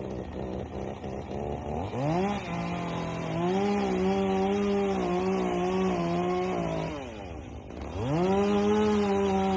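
Two-stroke chainsaw idling, then run up to full throttle about two seconds in and held there for about five seconds with the pitch wavering a little. It drops back to idle and is revved up again near the end.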